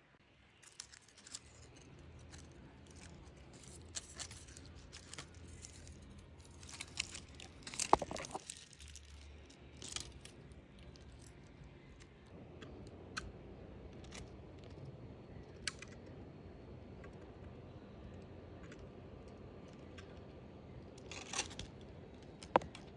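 Faint rustling, crackling and scattered clicks of hands handling an orchid's dry roots and bark on a cork mount. A few sharper clicks stand out, the loudest about eight seconds in and just before the end.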